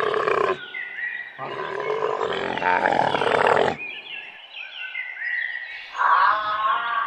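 Loud wild animal calls: a call breaking off about half a second in, a long, harsh cry from about one and a half to nearly four seconds, and a wavering pitched call starting near the end. Short, high chirps that slide downward repeat in the background throughout.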